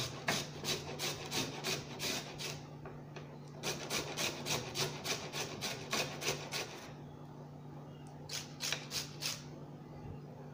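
Beetroot being grated on a flat handheld metal grater: quick rasping strokes, about three or four a second, in three runs with short pauses between.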